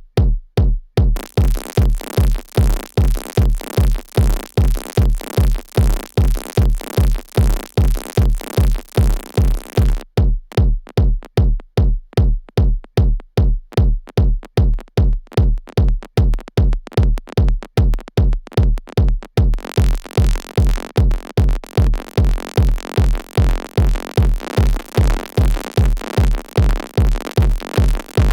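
Techno beat playing from the computer: a steady four-on-the-floor kick drum, about two beats a second, with higher percussion layered over it. The upper layer drops out about ten seconds in, leaving the kick with sparse ticks, and comes back near twenty seconds.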